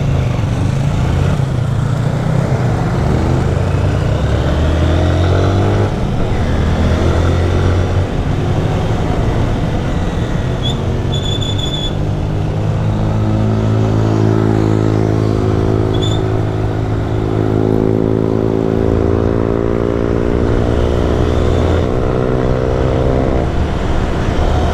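Honda CG 160 Titan's single-cylinder four-stroke engine running loud under way, its note climbing as the bike accelerates, once early and again in a long pull through the second half. Two brief high-pitched tones sound around the middle.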